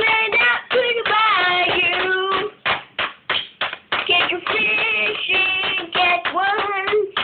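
A child singing a made-up tune while hitting drumsticks on a pad, with quick taps between and under the sung lines.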